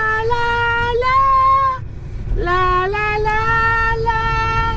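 Background music: a high voice singing long held notes, with a short break about two seconds in, over a steady low rumble.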